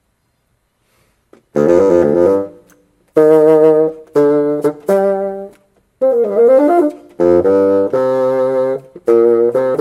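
Solo bassoon: after a rest of about a second and a half, it plays a phrase of separate held notes, with a quick up-and-down run of notes around the middle.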